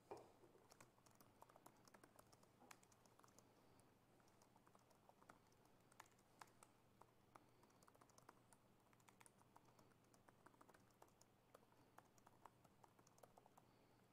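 Faint typing on a laptop keyboard: a steady run of light key clicks over a low, steady hum.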